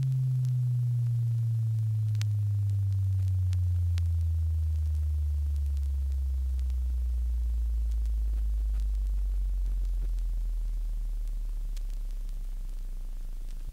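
The low end of a sine-wave glide test tone on an old calibration tape, played on a Sony TC-350 reel-to-reel deck. The tone slides steadily down through the deep bass toward 30 cycles, grows a little fainter and cuts off abruptly at the end. A few faint ticks can be heard in the first seconds.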